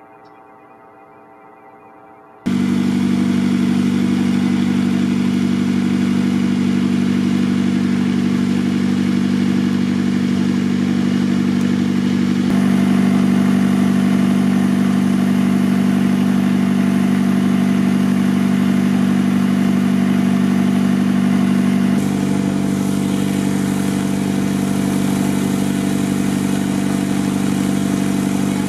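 Trailer-mounted, engine-driven flood pump running with a steady, loud drone. The sound starts suddenly about two and a half seconds in, and its tone shifts slightly twice as the shots change.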